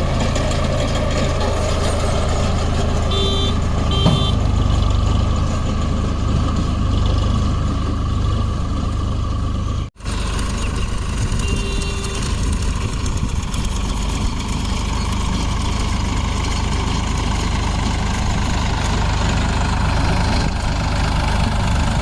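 Tractor engine running steadily. Two short high beeps come about three to four seconds in and another near twelve seconds, and the sound breaks off for an instant about ten seconds in.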